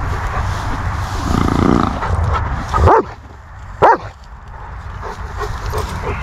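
Long-haired German Shepherd barking twice at horses across a fence, two short sharp barks about a second apart near the middle.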